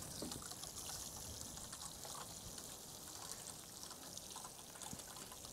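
Water spraying from the rose of a watering can and pattering onto damp compost, a faint, steady shower.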